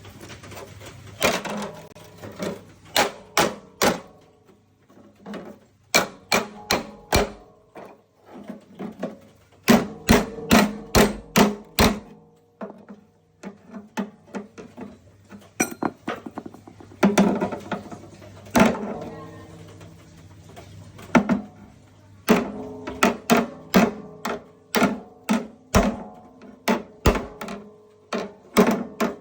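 Hammer blows on the steel floor deck of a Vespa PTS 100 scooter, beating the dented deck flat in quick runs of ringing strikes separated by short pauses. Background music plays underneath.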